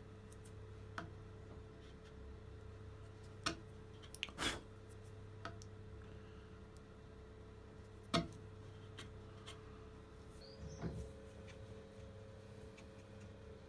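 Steel bevel-edge chisel paring an oak dovetail by hand, giving about half a dozen light clicks and taps a second or more apart, with a short scrape near the end. A faint steady low hum runs underneath.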